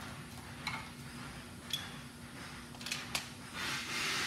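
Small hard clicks and clinks of tools and tape rolls handled on a concrete floor while floor-marking tape is laid, one with a brief metallic ring. Near the end comes a longer rushing noise, over a steady low hum.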